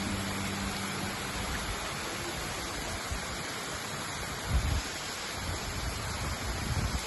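Steady rush of water from a waterfall, an even hiss with no rhythm. A last music note fades out in the first second, and a brief low rumble comes about four and a half seconds in.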